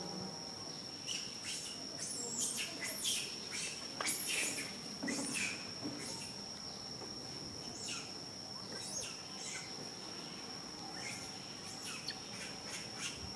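A steady, high-pitched insect whine, as from crickets or cicadas, runs without a break. Over it come many short, high chirps that fall quickly in pitch, clustered most densely in the first half.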